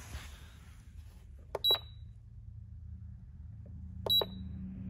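Handheld motorcycle flash tuner giving two short high beeps about two and a half seconds apart, each with the click of a button press, over a faint steady low hum.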